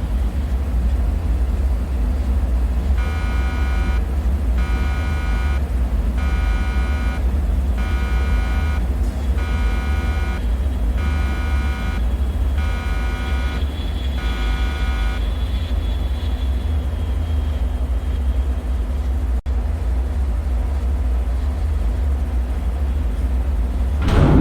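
Deep, steady droning rumble of a bunker ambience, with an electronic alarm beeping eight times, about one every second and a half, from about 3 s to 15 s. Right at the end a sudden bang rings out.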